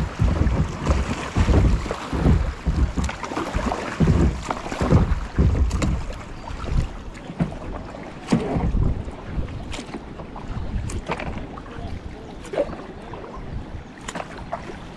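Kayak running river rapids: rushing water and irregular paddle splashes, with wind buffeting the microphone. A few sharp knocks come in the second half, and it grows quieter after the first half.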